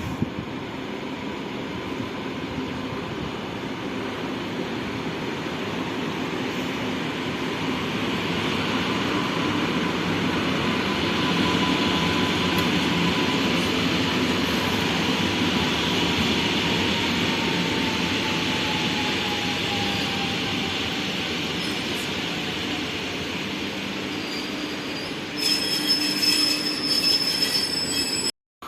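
Train running along the platform: a steady rumble that swells and then eases, with a whine that slowly drops in pitch. Near the end come a short burst of clattering and a high wheel squeal, then it cuts off suddenly.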